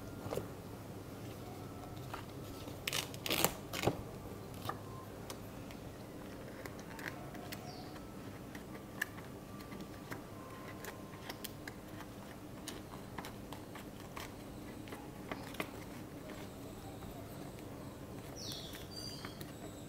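Paper sheets rustling and handled, with soft clicks and taps as punched pages are pressed onto a disc-bound planner's metal discs. The loudest rustle comes about three seconds in, over a steady low room hum.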